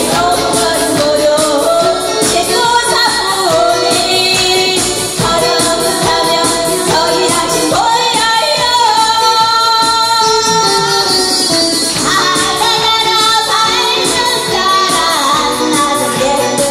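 A woman singing a Korean popular song into a handheld microphone over amplified backing music with a steady beat.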